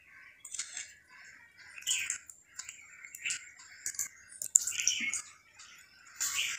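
A spatula knocking and scraping in a dry frying pan as spice-coated eggplant slices are turned over, with a sharp click about four and a half seconds in. Birds chirp in the background.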